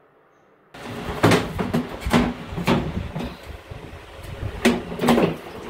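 Slatted plastic roll-up bathtub cover being pushed back, its slats knocking and clattering in two bursts of sharp knocks.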